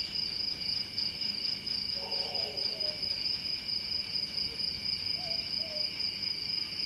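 Steady, high-pitched cricket chirring with no break, and a faint voice briefly about two seconds in and again around five seconds.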